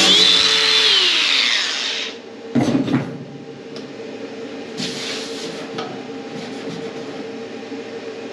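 Angle grinder on an aluminium tank winding down, its whine falling in pitch over the first two seconds. A loud clatter follows, then a brief scrape and a low steady hum.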